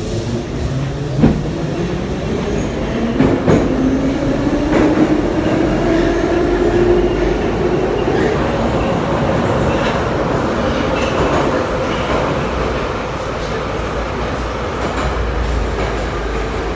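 Em-series (81-501/502/503) metro train pulling away and running through the tunnel. The traction motors' whine rises steadily in pitch over the first several seconds as it accelerates, with a few sharp clicks of the wheels over rail joints, then settles into a steady whine over the rumble of the running car.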